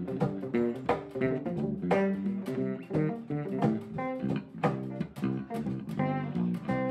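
Live band playing an instrumental passage: a guitar picking quick runs of separate notes over sharp, regular percussive hits.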